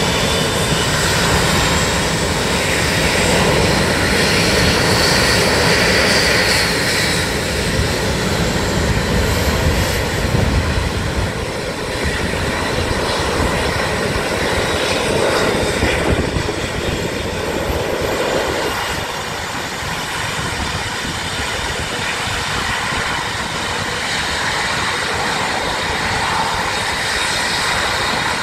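Blue Angels F/A-18 Hornets taxiing, their twin General Electric F404 turbofan engines running: loud, steady jet noise with a high whine, a little quieter in the second half.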